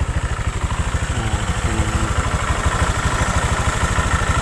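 Honda Vario 125 scooter's single-cylinder four-stroke engine idling steadily, heard close up at the rear by the air filter box, with a rapid even low pulse. A steady higher whine grows stronger about halfway through.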